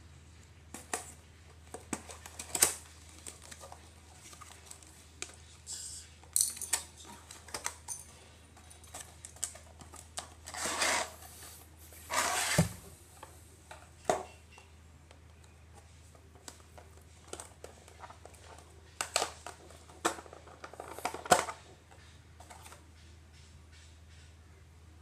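Packaging being handled during an unboxing: scattered clicks, taps and knocks, with two short scraping or rustling sounds a little before halfway, over a steady low hum.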